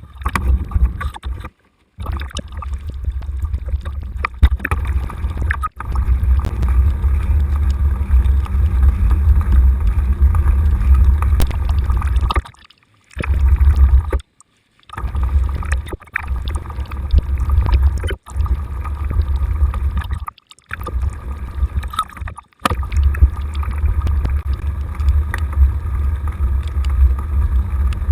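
Loud, low rumble of wind and riding noise buffeting a camera microphone on a bicycle in motion, cut off abruptly into silence several times.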